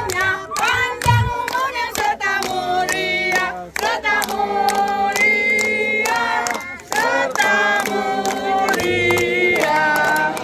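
A group of people singing a song together, with long held notes, over a steady beat of sharp strikes.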